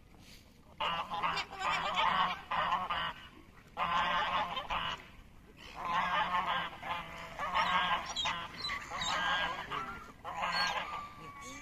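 Water birds giving loud, harsh honking calls in about six bouts of one to two seconds each.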